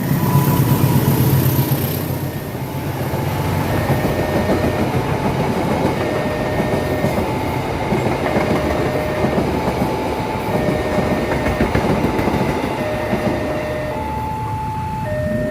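A train passing fast over a level crossing: loud rumble and wheel clatter over the rails, heaviest in the first two seconds. The crossing's warning alarm sounds a short steady tone about every two seconds throughout.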